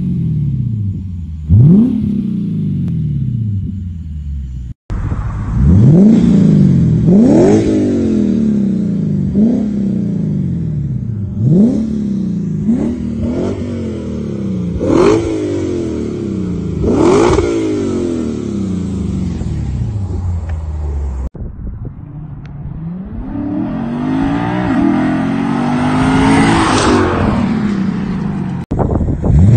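Lexus GS F's 5.0-litre V8 being revved over and over in quick blips. Each blip is a sharp rise in pitch and a slower fall back toward idle. Several clips are spliced together with abrupt cuts, and a longer, building rev comes near the end.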